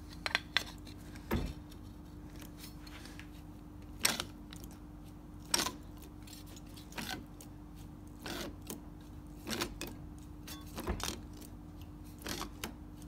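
Vise-mounted METZ hand-lever shrinker-stretcher clunking shut on a 1.5 mm aluminium flange, one stroke about every second and a half, shrinking the flange so the strip curves.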